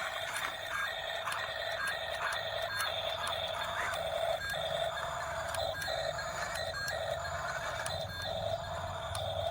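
Remote-control construction model running: a steady whine broken by short gaps about twice a second, with faint clicks, and a low hum joining from about two and a half seconds in.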